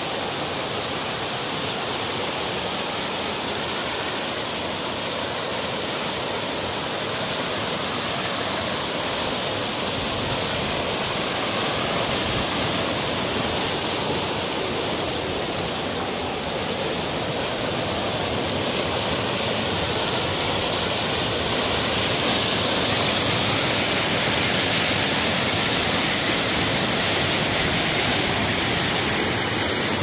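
River water rushing over rock slabs in shallow rapids at the lip of a waterfall: a steady, full rush that grows a little louder in the second half.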